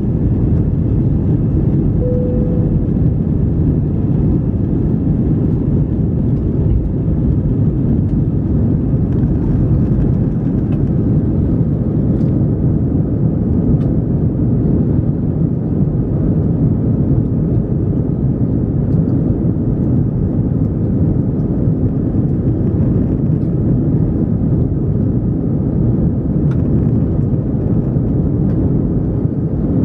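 Jet airliner's engines at take-off power during lift-off and the first climb, heard from inside the cabin as a steady, loud, low rumble.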